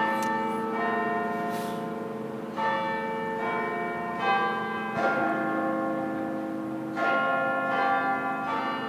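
Rochdale Town Hall's clock-tower bells chiming the hour: a tune of single bell notes struck in phrases of about four, with a short pause between phrases, each note ringing on under the next.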